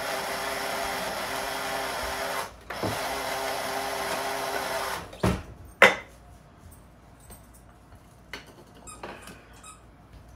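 Small battery-powered electric spice grinder running in two bursts of about two and a half seconds with a short pause between, its motor at a steady pitch. It stops about five seconds in, followed by two sharp knocks, the second the loudest, and then a few light clicks.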